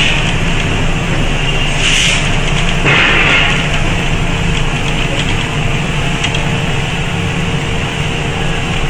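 Industrial PCB assembly machinery running steadily with a low hum, and a short hiss about 2 seconds in and again about 3 seconds in.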